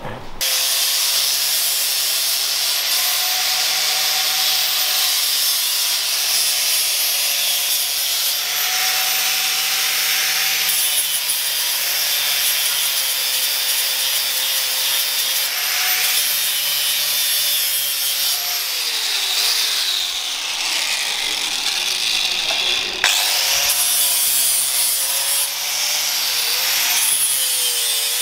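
Power sander working over a car's metal body panels: a steady abrasive hiss over a motor hum whose pitch wavers. There is a brief break about 23 seconds in.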